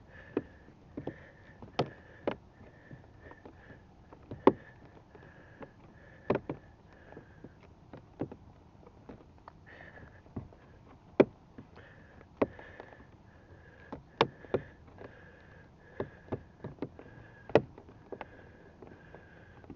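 Plastic trim clips and housing clicking and knocking as the Jetta's mirror-adjustment knob assembly and door trim are pushed back into place: many sharp, irregular clicks. Under them a faint high tone repeats about every half second.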